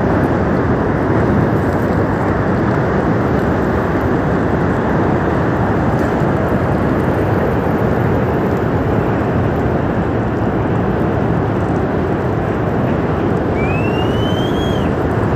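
Loud, steady rushing noise of a glacial-burst flood surge: mud- and debris-laden water tearing down a mountain river valley. Near the end a short, high whistle rises and falls once.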